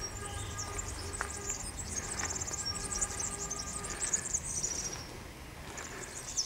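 Outdoor ambience: rapid, high-pitched chirping trills from insects or small birds, easing off near the end, over a faint low rumble.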